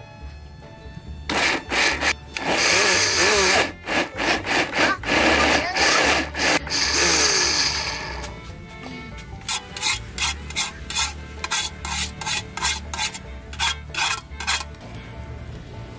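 Silver Crest SC-1589 countertop blender grinding a full jar of chillies, lemongrass and garlic into paste, run in a long burst and then in short pulses. From about nine seconds in, a hand rubs and scrubs the inside of a wet metal pot in even strokes, about two or three a second.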